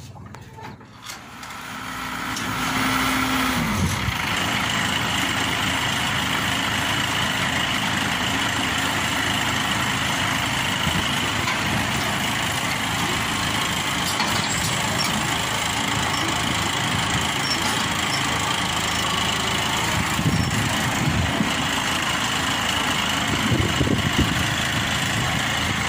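Maxxi Bimo 102 combine harvester's engine starting up: a steady whine rises about two seconds in and drops away near four seconds as the engine catches, then the engine runs steadily, swelling briefly a couple of times later on.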